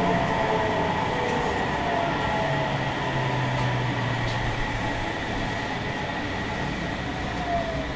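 Sendai City Subway 1000N series train heard from inside the car, running through the tunnel and slowing. The motor whine glides down in pitch and the running noise fades gradually as it brakes for the next station.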